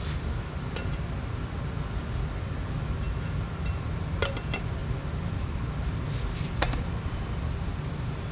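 A few light metallic clinks and taps, some with a short ringing, as aluminum tube pieces are handled and set in place, over a steady low hum.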